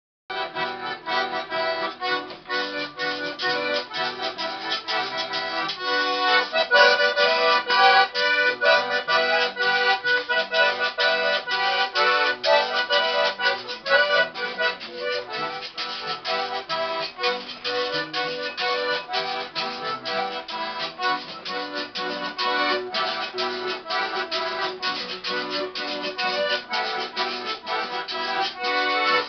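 Bandoneon playing a lively tune over requinto and guitar, the plucked strings keeping a quick, even rhythm.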